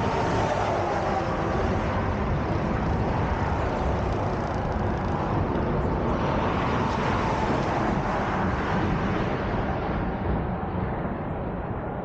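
Road traffic passing on the bridge: a box truck goes by at the start and another vehicle swells past about halfway through, a continuous rush of tyre and engine noise that eases near the end.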